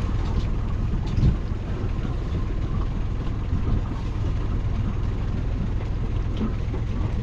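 Small motorboat's engine running steadily underway, a low hum over a steady hiss of wind and water.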